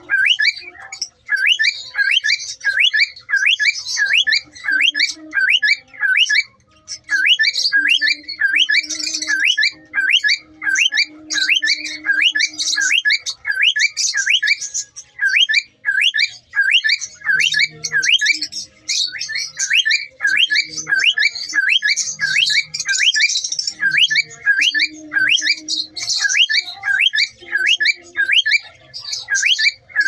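Cockatiel calling over and over in a fast, steady series of short squawks, about two to three a second, the harsh repeated calling of a territorial, agitated bird.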